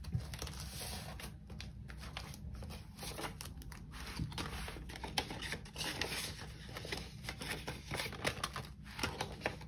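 Paper banknotes being handled and counted out by hand: an irregular run of soft paper rustles and small clicks.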